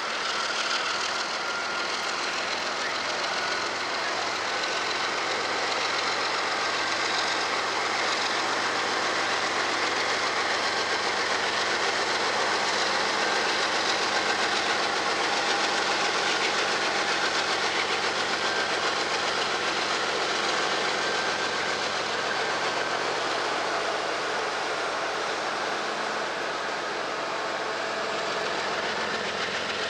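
Norfolk Southern freight train passing at speed: diesel locomotives, then a mid-train locomotive and a long string of autorack cars with steady wheel-on-rail rumble. Loudest as the mid-train locomotive goes by about halfway through.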